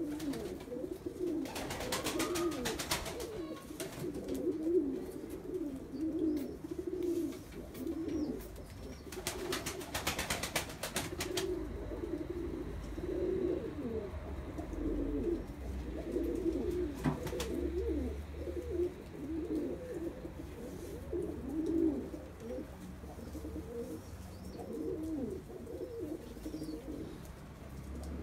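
A flock of domestic pigeons cooing continuously in a loft, many low, wavering coos overlapping. Two bursts of rustling noise, each a couple of seconds long, come about a second and a half in and about nine seconds in.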